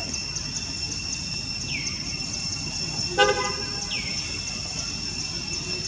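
Steady high insect drone with a fast ticking about five times a second, two short falling whistles, and one brief loud horn-like toot about three seconds in.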